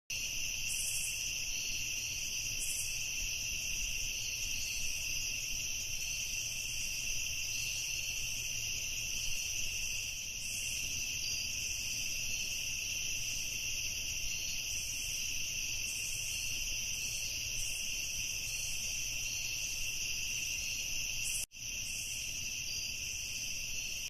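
Steady chorus of insects, a continuous high-pitched trill that cuts out for an instant near the end.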